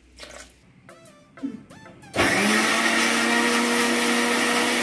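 An electric mixer grinder is switched on about two seconds in. Its motor spins up quickly and then runs steadily at full speed, grinding fried onion, tomato, coconut and spice masala with a little water into a fine paste.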